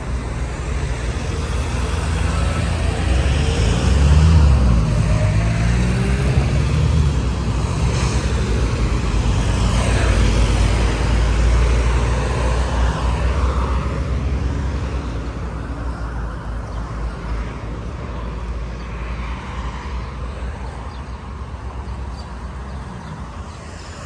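Road traffic passing on a multi-lane street: cars and a van going by with low engine and tyre rumble. It swells about four seconds in and again around ten to twelve seconds, then eases off near the end.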